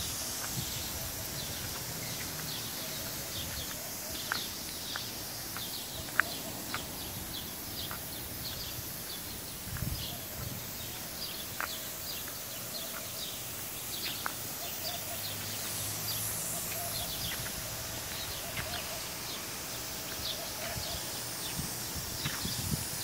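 Pop-up lawn spray sprinklers watering turf, a steady hiss of many spray heads, with scattered short high chirps throughout.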